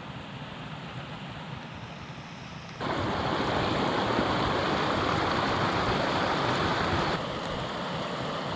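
Steady rushing of a small mountain stream's running water. It jumps abruptly louder about three seconds in and drops back somewhat near the end.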